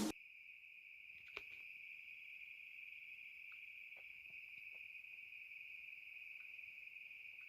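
Faint, steady trilling of crickets, one continuous high-pitched buzz, with a couple of faint clicks about a second and a half in.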